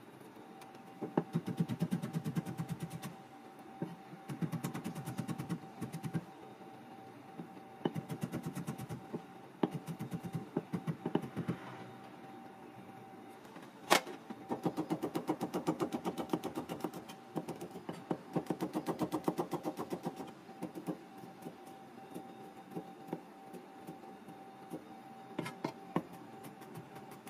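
Chef's knife rapidly chopping garlic on a cutting board: quick, even taps in bursts of a few seconds at a time. One sharp single knock about halfway through is the loudest sound, and a faint steady hum runs underneath.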